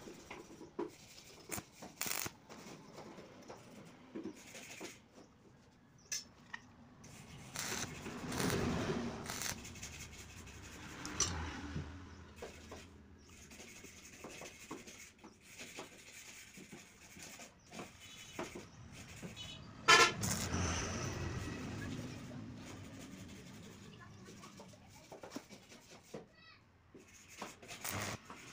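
Square steel bars clinking and knocking as they are set out and shifted on the ground for a grill frame, with one louder metallic clang and ringing about two-thirds of the way through.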